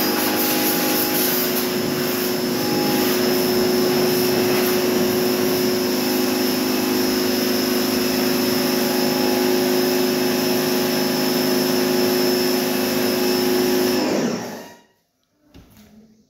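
Electric pressure washer running and spraying water during a car wash: a loud, steady motor hum over the hiss of the spray. It stops about fourteen and a half seconds in.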